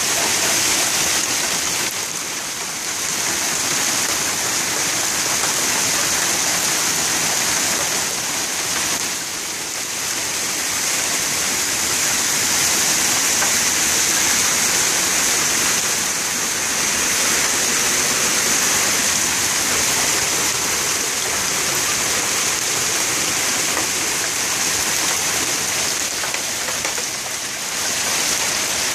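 Heavy hail mixed with rain pelting down in a dense, steady hiss of stones and drops hitting the ground, the parked cars and the roofs, easing slightly for a moment a few times.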